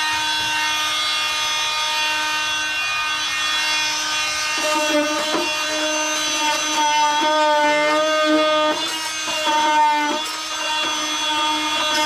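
Rockwell Sonicrafter oscillating multi-tool running with a steady high hum as its blade scrapes thick Bondo body filler off the metal body. The pitch sags and wavers as the blade is pressed into the filler, and the level dips briefly near the end.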